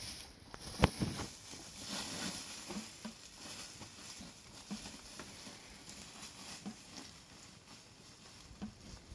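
An orange plastic sack being handled and rustled, with small scattered taps and scuffs; one sharp snap about a second in.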